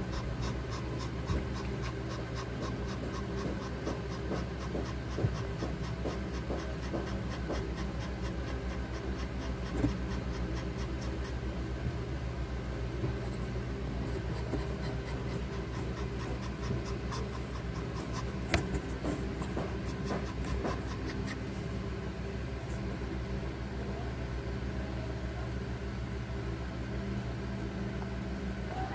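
A Shih-tzu bitch in labour pants quickly and evenly, most clearly in the first half, over a steady low hum. There are a few sharp clicks, at about five, ten and eighteen seconds in.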